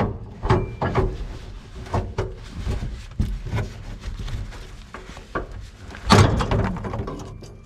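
Irregular knocks and clanks of hand tools and metal parts being handled, with a louder clatter about six seconds in.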